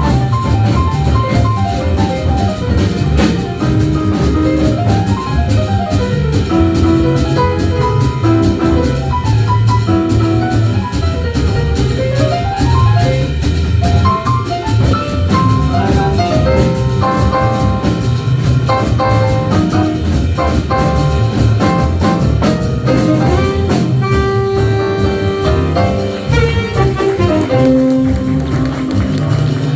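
Live jazz ensemble playing: a drum kit under horn lines and quick melodic runs.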